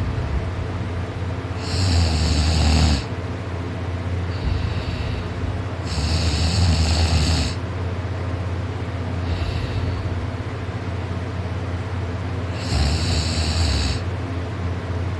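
A person snoring loudly in their sleep: three loud snores several seconds apart, with fainter breaths between them.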